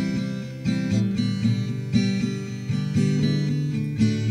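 Acoustic guitar strumming chords at a steady pace, an instrumental pause between sung lines of a folk-pop song.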